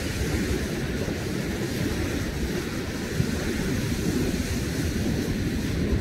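Sea surf breaking and washing over black basalt rocks: a steady rush with a strong low rumble, with wind on the microphone.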